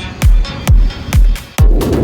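Electronic dance beat from the Groovepad beat-maker app: a steady kick drum, each hit dropping in pitch, a little over two a second, with crisp hi-hats between the kicks. A dense buzzing synth layer comes in near the end.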